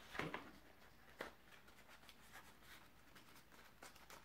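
Faint handling of cardstock as a folded paper band is slid over a cardstock tea-light box: a short rustle and scrape at the start and a single tap about a second in, then near silence with a few faint ticks.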